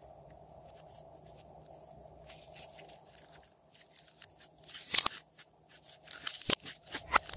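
Glossy yellow slime being stretched and squeezed by hand, giving sticky crackling clicks and sharp pops. After a quiet start the crackling builds from about two seconds in, with the loudest pops about five seconds in and near the end.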